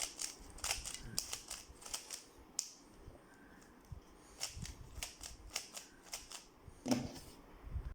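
A 3x3 Rubik's Cube's plastic layers being turned by hand, a run of quick sharp clicks and snaps, with a short lull about three seconds in. The turns are the repeated middle-layer and top-layer moves that undo the Superflip pattern.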